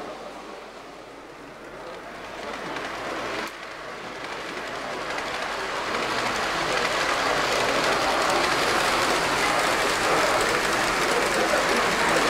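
H0-scale model train, an electric locomotive hauling Intercity coaches, running along the layout track with a steady rolling rattle. It grows louder over the first half as it approaches.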